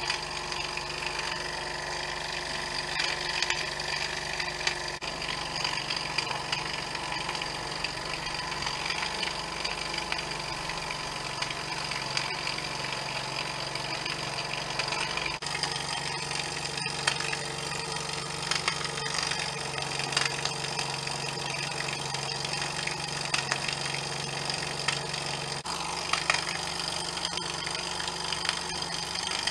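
Cheddar Models Mk.1 Pipit model steam engine, a small single-cylinder oscillating engine, running steadily on steam from its boiler.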